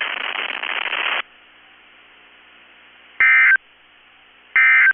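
Radio static hiss that cuts off about a second in. Then come two short, loud warbling data bursts about a second and a half apart: the Emergency Alert System's SAME end-of-message code, which signals that the alert broadcast is over.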